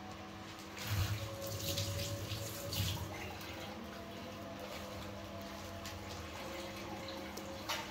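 Water splashing in a few short bursts in the first three seconds, over a steady low hum.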